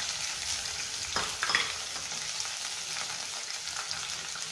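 Hot oil sizzling steadily in a nonstick frying pan as chopped capsicum (green bell pepper) pieces are dropped in, with a couple of soft knocks about a second and a half in.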